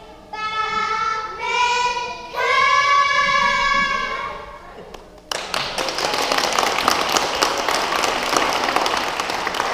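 Children singing together, holding long notes that step up to a final sustained note and fade. About five seconds in, an audience breaks into applause that goes on to the end.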